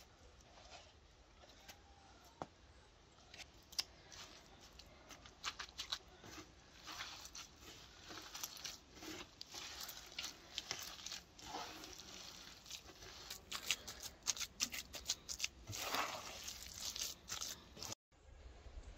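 A hand squeezing and kneading a moist filling of ground walnuts and chopped greens in a wooden bowl: a run of short squishing, crackling noises that grows busier in the second half.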